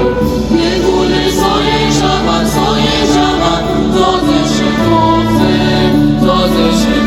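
Music with choral singing: several voices holding long, steady notes over a low drone.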